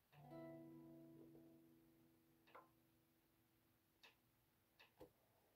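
Squier Stratocaster electric guitar: a single chord strummed once, ringing and slowly fading, then cut off about five seconds in. A few faint clicks are heard during the ringing.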